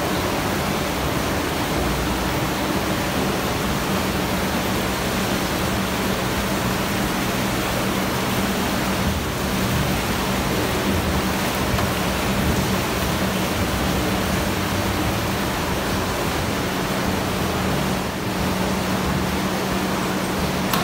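Wastewater rushing through the channel of a Blue Whale micro bar screen: a steady, loud rush of water, with a steady low hum under it.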